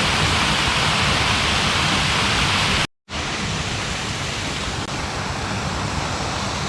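Steady rush of a waterfall, a dense hiss of falling water. It cuts out for a moment about three seconds in and comes back a little duller.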